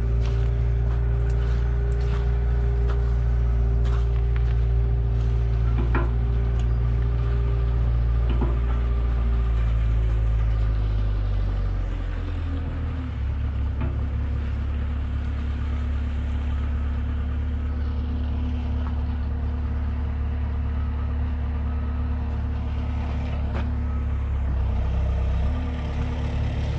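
A heavy vehicle's engine running steadily. About twelve seconds in it drops to a lower, slower speed and holds there.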